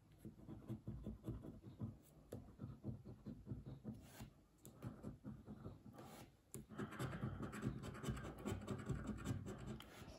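A coin scraping the scratch-off coating from a paper scratch card, in several runs of scratching with short pauses between them.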